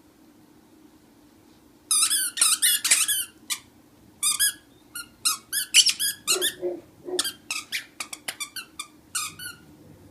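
Squeaky plush lion toy squeaking over and over in quick irregular bursts as a Great Pyrenees puppy chews it, starting about two seconds in.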